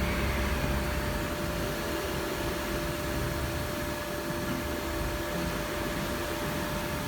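OKK PCV-55 CNC vertical machining centre running on a test cycle: a steady hiss and hum with a constant mid-pitched whine.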